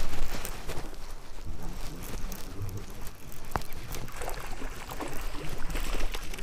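Wind noise on the microphone, a steady low rumble, with small scattered clicks and light splashing as a hooked bass is reeled in to the bank.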